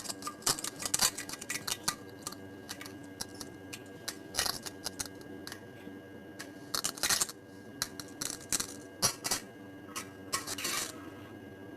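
Diarrhea sound effect: a run of irregular wet splats and crackles, coming thick in several clusters, over a faint steady tone.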